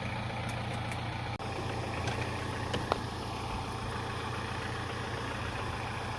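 A motor engine idling steadily, with a brief cut-out about a second and a half in and a single short click near the middle.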